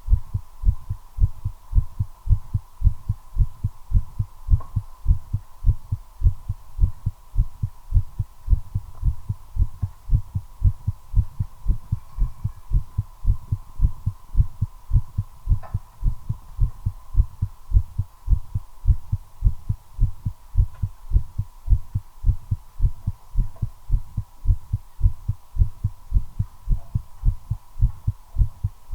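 A human heartbeat: fast, regular lub-dub beats, quickened by the nicotine of a cigarette being smoked. A faint steady tone runs behind the beats.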